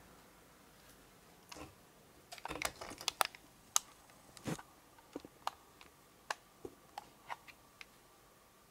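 A string of light, sharp clicks and taps, irregular: a quick cluster in the third second, then single ticks spaced half a second or so apart, stopping a little before the end.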